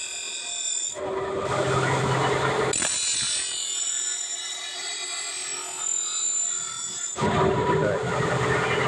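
Leaf-spring steel cleaver blade ground against a spinning grinding wheel: a steady high grinding whine and hiss over the running motor. It turns louder and rougher for a stretch about a second in and again near the end.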